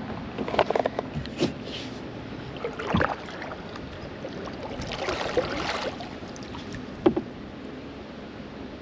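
Kayak paddling: paddle blades dipping and splashing in the river water at an irregular pace, with a few sharp knocks, the loudest late on.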